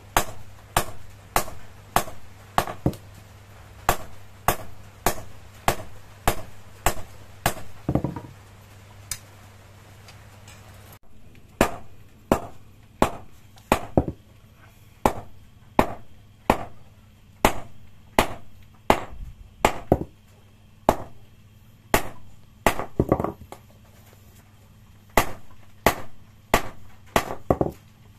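Hand hammer forging red-hot leaf-spring steel into a parang blade on a small iron anvil block: a steady run of sharp ringing blows, about one to two a second, with a pause of a few seconds about a third of the way in.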